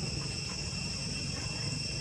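Steady outdoor insect chorus: a constant high buzzing at a few fixed pitches, over a low rumble.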